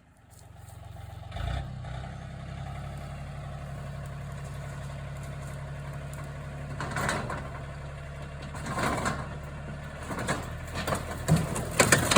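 Backhoe engine running steadily, coming in about a second and a half in, with a few brief clattering knocks partway through and near the end as the machine works the demolished wooden structure.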